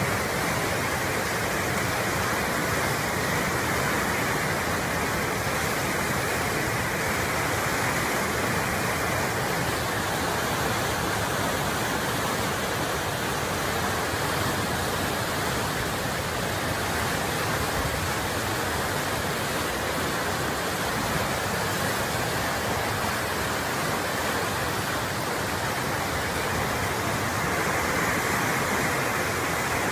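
Rushing floodwater: a steady, unbroken rush of fast-flowing water.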